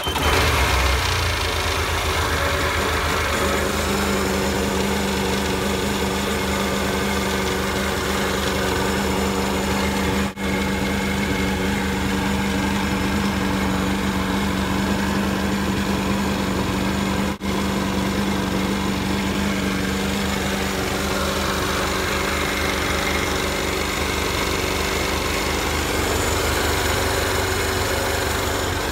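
Jet ski engine running steadily out of the water, cooled by a garden hose, during a leak test of a newly replaced exhaust manifold. It cuts out for an instant twice.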